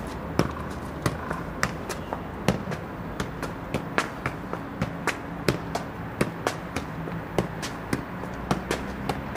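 Size 5 soccer ball being juggled with the feet: a steady run of sharp thumps, about two to three a second, as the ball is kicked.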